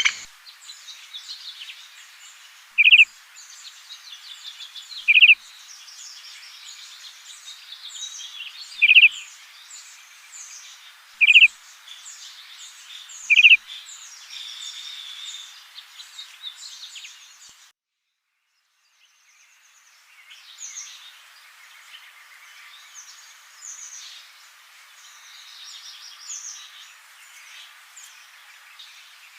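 Birds calling: a loud, short call repeated five times, a few seconds apart, over a chorus of many small chirps. The sound drops out completely for about two seconds just past the middle, then the chirping chorus carries on.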